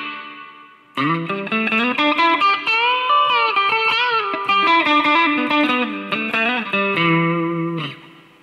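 Electric guitar on its middle single-coil pickup, giving a Strat-like sound: a picked single-note phrase with string bends in the middle. It follows the dying ring of the previous note and fades out near the end.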